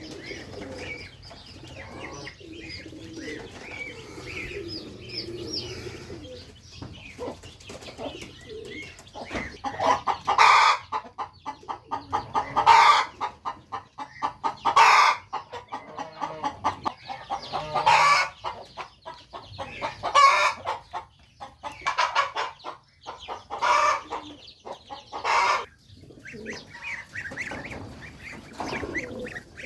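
Farm poultry calling: faint high peeping, then from about ten seconds in a run of loud, harsh, pulsing calls repeated every two seconds or so, which stop near the end.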